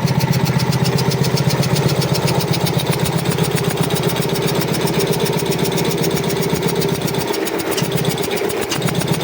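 Sanco VS20 25 HP high-pressure air compressor running under test, a steady fast-pulsing mechanical hum. The low hum drops away briefly about seven seconds in and then comes back.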